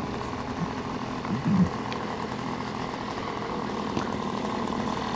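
Small model-airplane engine running steadily on the ground, its propeller spinning. About a second and a half in, a brief louder sound with a bending pitch rises over it.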